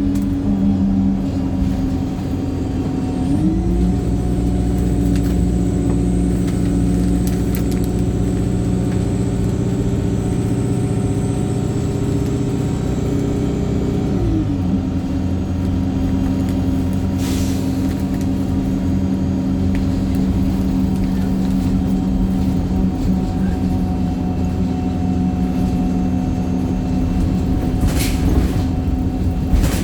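Wright StreetLite single-deck bus driving hard, its engine a steady drone. The note rises about three seconds in, holds, then falls back around fourteen seconds in. Two brief hisses of air come later, at about seventeen and twenty-eight seconds: the bus's air-system "sneezing".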